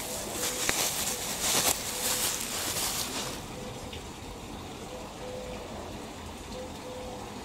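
Bubble wrap rustling and crinkling as a part is drawn out of it, stopping about three and a half seconds in.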